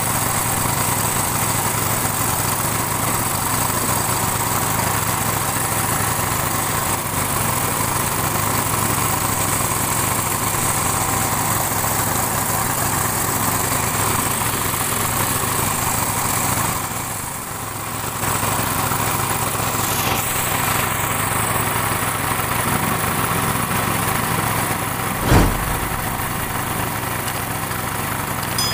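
The boat's small Honda engine running steadily under way, a constant drone that eases briefly about two-thirds of the way through. A single low thump comes near the end.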